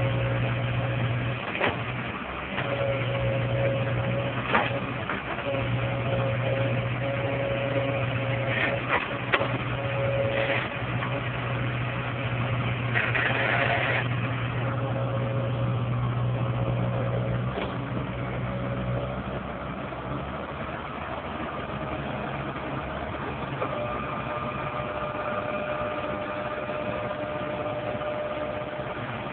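Komatsu crawler excavator's diesel engine running steadily as it digs, with a few sharp knocks from the bucket and boom. A short hiss comes about halfway. The engine note eases about two-thirds of the way in, and a higher steady whine sounds through the last few seconds.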